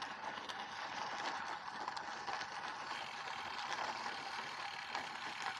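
Road bike rolling along a rough narrow path: steady tyre and wind noise with faint scattered ticks.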